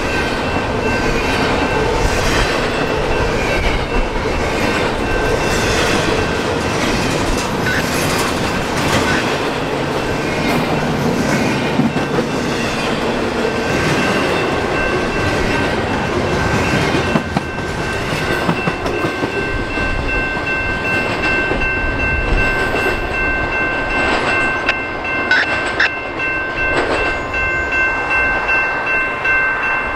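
Empty intermodal well cars of a CSX freight train rolling past, steel wheels clattering and rumbling on the rails. A thin, steady high-pitched squeal joins in about halfway through.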